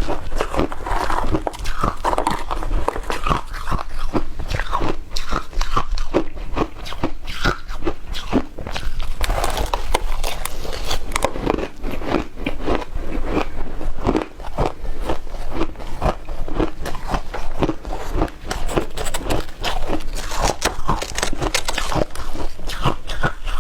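Close-up crunching and chewing of shaved ice mixed with milk powder: a dense, continuous run of sharp crunches, several a second.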